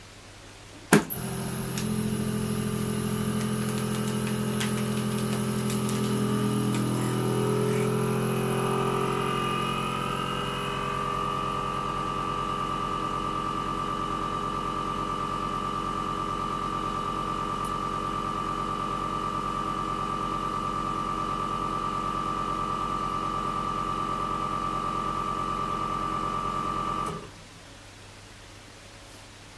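Lava V.200 Premium vacuum sealer's pump starting with a click about a second in and drawing the air out of a bag of meat: a steady machine hum whose tones climb in pitch for a few seconds, then hold steady until the pump cuts off suddenly near the end.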